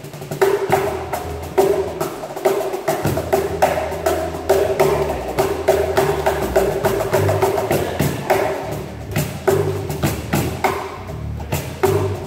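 Two BangBox cajons slapped by hand in a fast, busy rhythm of sharp wooden strokes, played together with an electric bass guitar line underneath.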